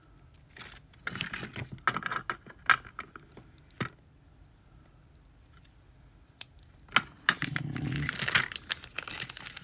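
Small metal lock parts clicking and rattling as a Lockwood lock is taken apart by hand: a run of sharp clicks and light jingling, a pause, a couple of single clicks, then a denser rattle near the end.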